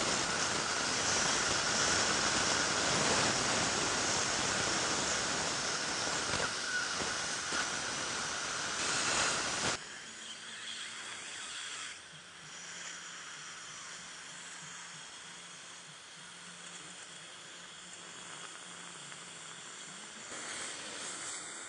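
Dental handpiece drilling into a tooth root with water spray and suction, a loud steady hiss that cuts off suddenly about ten seconds in. A much quieter hiss with a low steady hum carries on after it.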